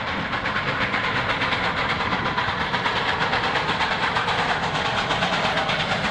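Train running past at speed: a steady, loud noise of wheels and rails.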